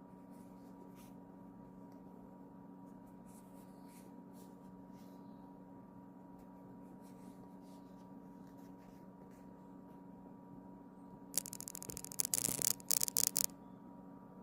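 Samsung Galaxy S25 Ultra camera module giving a faint steady hum with scattered light ticks, then about eleven seconds in a rapid, loud buzzing rattle of fast clicks lasting about two seconds. This is the strange camera noise that goes with the camera's very shaky focus.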